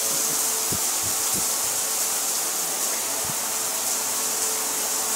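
Water spraying from the body jet nozzles of a shower panel: a steady high hiss of fine jets hitting the wall, with a few faint knocks.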